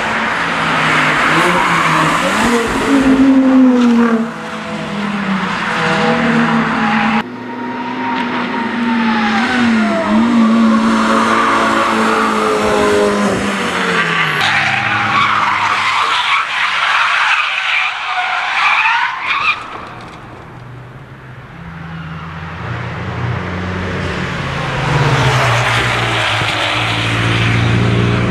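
Hatchback cars driven hard through corners on a race track, heard from trackside: engines revving up and down and tyres squealing as the cars slide. The sound changes abruptly several times as one car gives way to the next, and a lower, steady engine note builds near the end.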